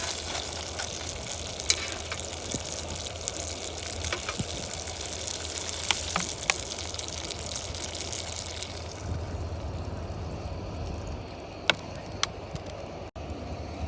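Clams cooking in a pan, the liquid they have released bubbling and hissing, with a few sharp clicks of utensils against the pan. The hiss dies down about nine seconds in, leaving a quieter bed with occasional clicks.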